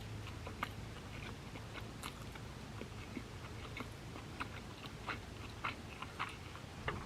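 A person chewing sushi close to the microphone: faint, irregular mouth clicks and smacks.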